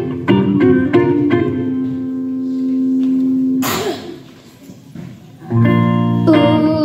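Amplified electric guitar playing a few chords, the last one left to ring for about two seconds, then a short burst of noise and a brief pause before the guitar comes back in. Near the end a child's voice starts to sing over it.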